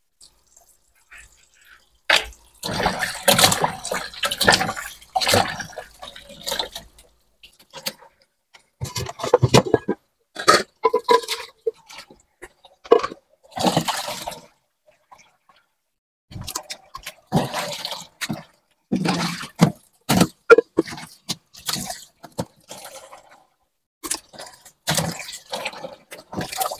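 Tap water running and splashing in a kitchen sink in short, irregular spells as raw meat is washed by hand, with handling noises in between.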